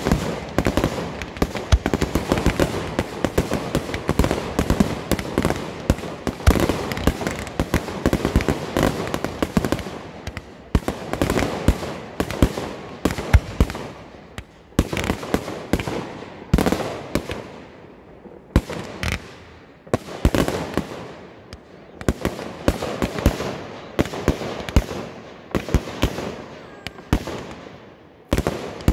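Fireworks display: aerial shells bursting overhead, in a dense, rapid barrage for about the first ten seconds, then separate bangs every second or two, each trailing off.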